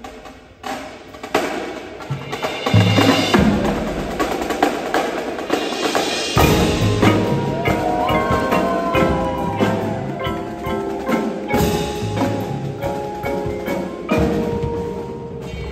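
Marching percussion ensemble playing: marimbas and other mallet keyboards ring out pitched notes over snare, tenor and bass drums, drum kit and cymbals. It starts softly and builds over the first few seconds.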